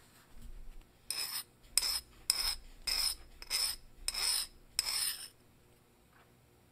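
Flat hand file scraping across the flattened steel tip of a drill bit being shaped into a marking knife: seven quick strokes, about one every two-thirds of a second, then it stops.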